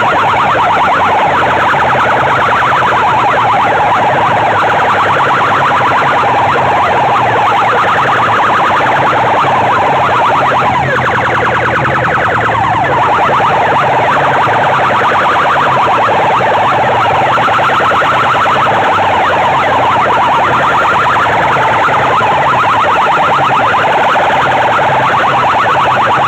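Large PA sound systems of horn loudspeakers and speaker boxes blasting a wailing, siren-like competition tone at full volume. The sound is harsh and overdriven, with a rapid pulsing throughout and a brief dip in level about two-thirds of the way in.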